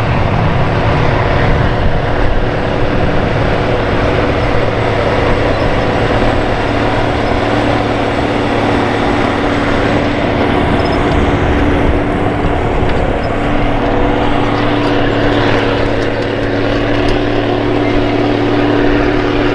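Steiger Cougar ST280 four-wheel-drive tractor's six-cylinder diesel engine running steadily under load as it pulls a John Deere 726 mulch finisher through the soil, with a constant low drone.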